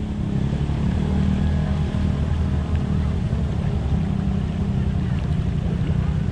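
ATV engine idling steadily, a low even running note with no revving.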